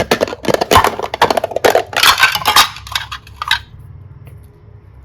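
Slime being stirred and squished: a dense run of quick wet crackles and clicks that stops about three and a half seconds in.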